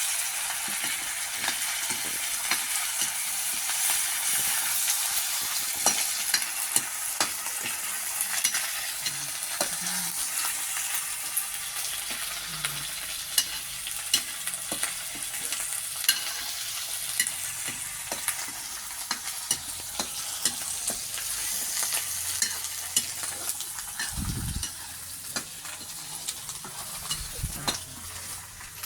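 Chopped onion, garlic and ginger sizzling in hot oil in a pan, stirred with a spoon that scrapes and taps against the pan many times.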